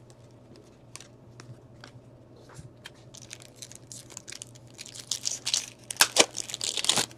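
Light clicks of trading cards being handled, then from about three seconds in the crinkling and tearing of a hockey card pack's foil wrapper being ripped open, loudest near the end.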